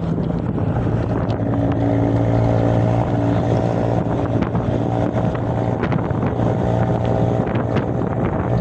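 A steady engine drone with wind buffeting the microphone; the drone is strongest in the middle.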